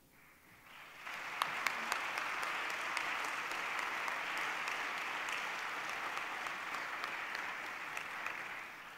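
Seated audience applauding: many hands clapping, swelling in over the first second and dying away near the end.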